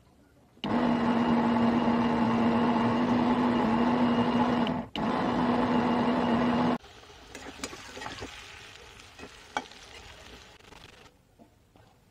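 Electric mixer grinder motor running at speed with its stainless steel jar, grinding spices into masala: a loud steady whirring hum that starts about a second in, drops out for an instant near the middle, and stops after about six seconds. A few faint clicks and knocks follow.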